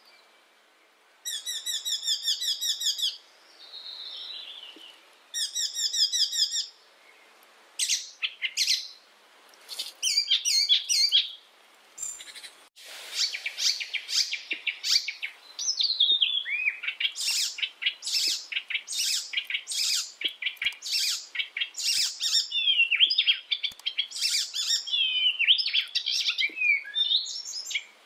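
Icterine warbler singing: first two short trains of fast, rapidly repeated notes, then a long jumbled run of varied chattering and whistled phrases that carries on almost without a break through the second half.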